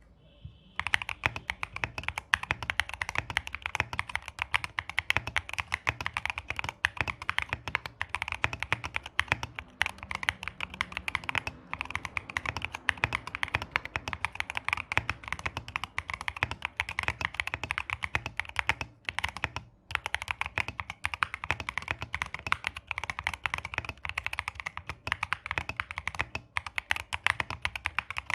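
Fast, continuous typing on a custom mechanical keyboard with lubed Qwertykop Musetsu tactile switches, in a wooden 65% case with a polycarbonate plate and foam. The keystrokes are dense clacks, a slightly deep sound with some pop from the switches' polycarbonate top housing. The typing starts about a second in and breaks off briefly about two-thirds of the way through.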